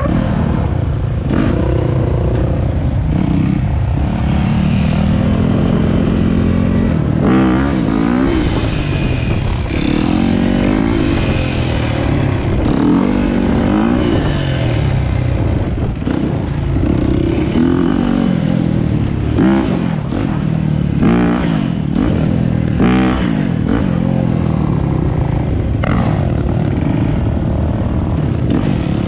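Dirt bike engine ridden close to the microphone, revving up and dropping back again and again as the throttle is opened and closed.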